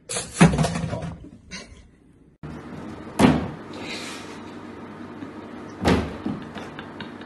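A sudden loud bang that dies away over about a second. A few seconds later come two separate sharp knocks, like hits on a hollow household surface, over a steady background hiss.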